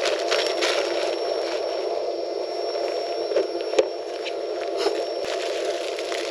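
Camping gas stove burning steadily under a steaming pot of water, with scattered crinkles and clicks of a plastic instant-noodle packet being opened and handled.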